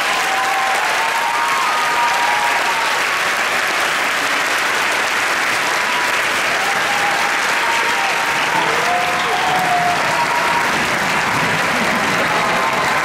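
A large audience in a big hall applauding steadily, with a few cheering voices calling out over the clapping.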